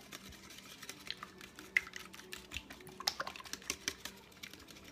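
Egg-and-eggnog mixture being whisked in a bowl: rapid, irregular light clicks of the utensil against the bowl.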